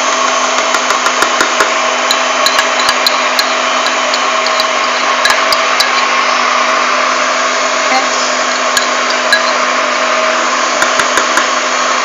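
Klaz electric stand mixer running steadily, its beater whipping cake batter in a stainless steel bowl, with a constant motor hum. Many short sharp taps and clicks come and go over it.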